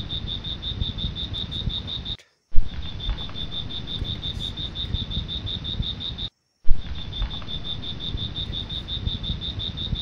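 A high-pitched insect trill in fast, even pulses, about ten a second, over a low rushing noise. The ambience cuts out twice for a moment and restarts each time with a sharp click, as a short recording looped.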